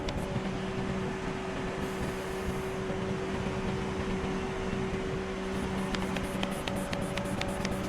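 A quick run of small clicks about six seconds in, from a lock pick being worked in a car lock under tension, over a steady hum.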